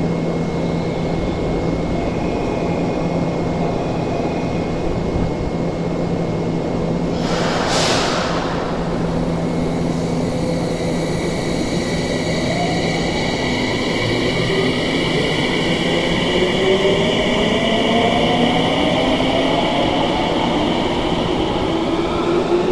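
Tsukuba Express electric train pulling out of an underground station: its traction motors give a whine of several tones that climbs steadily in pitch as it accelerates, over a steady hum. There is a short burst of hiss about eight seconds in.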